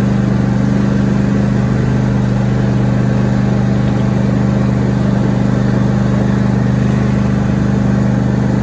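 A new John Deere S130 lawn tractor's Briggs & Stratton V-twin engine running steadily under the driver while the tractor moves across the lawn, an even engine note with no revving.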